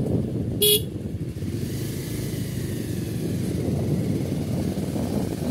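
A road vehicle on the move: steady engine, tyre and wind rumble, with one short horn beep near the start.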